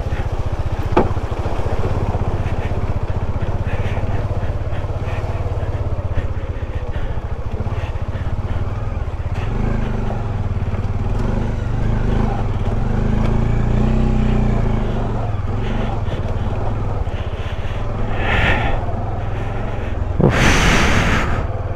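Motorcycle engine running at low speed on a muddy, rutted dirt road, its note rising and falling with the throttle and swelling for a few seconds midway. Near the end comes a short, loud rushing burst.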